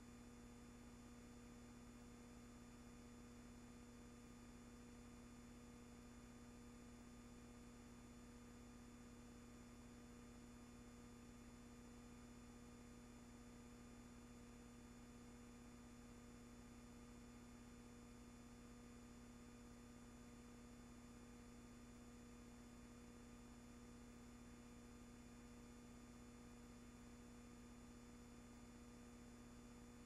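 Near silence: a faint, steady electrical hum with faint hiss.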